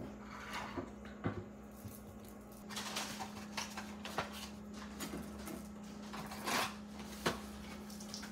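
Handling noises on a workbench: a few sharp clicks and the rustle of a small cardboard saw-chain box being handled and closed, over a steady low hum.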